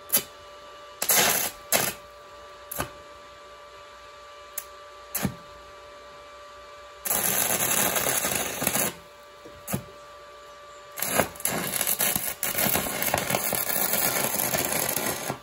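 Stick welding with an inverter welder at about 120 amps, burning a nail in place of a welding electrode. Several short crackling arc strikes come in the first five seconds, then the arc is held crackling for about two seconds, and again for about four seconds near the end.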